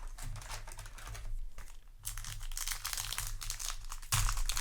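Crinkling of a foil booster-pack wrapper and trading cards being handled: a dense, rapid crackle that grows louder about halfway through, with a stronger burst near the end.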